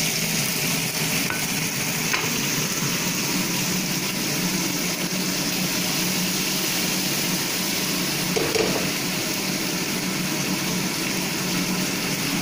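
Ka-bang fish sizzling steadily in hot oil in a frying pan, over the steady hum of a range hood fan.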